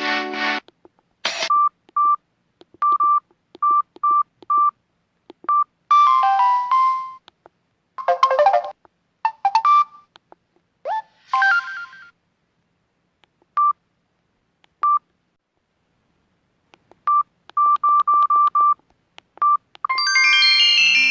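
Samsung SGH-M620 mobile phone sounding through its small speaker: many short identical beeps at one pitch, separated by silent gaps, and several brief melodic tone snippets. A longer multi-note tone starts near the end.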